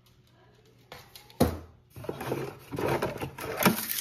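A cardboard filament spool being lifted out of a Bambu Lab AMS: a few small clicks, a sharp knock about a second and a half in, then rubbing and clattering as the spool comes off its rollers.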